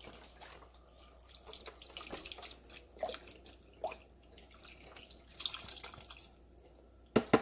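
Liquid, likely chicken broth, being poured into the Instant Pot's inner pot, splashing and dripping with a few glugs. Two sharp knocks near the end.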